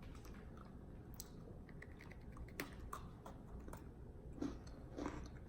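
Faint, scattered crunches and clicks of someone biting and chewing a crisp chocolate sandwich cookie, a few more of them in the second half.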